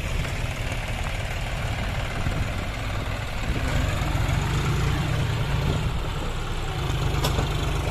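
John Deere tractors' diesel engines running steadily at low revs while pulling trailers loaded with soil. A single sharp click comes near the end.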